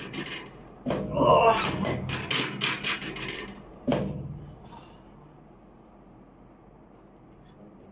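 A muffled voice with handling clicks, then one sharp knock about four seconds in.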